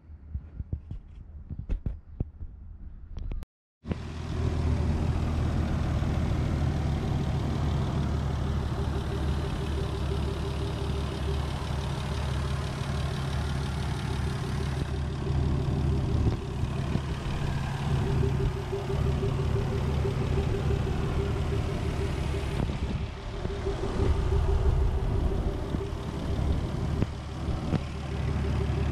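Nissan Skyline R34 25GT Turbo's RB25DET NEO turbocharged straight-six engine running at idle, heard from the open engine bay. It comes in after a few seconds of scattered faint knocks and a brief dropout.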